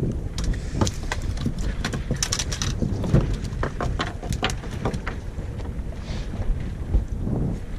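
Wind rumbling on the microphone, with a run of short, irregular clicks and knocks from rod and reel handling while a hooked fish is fought from the boat.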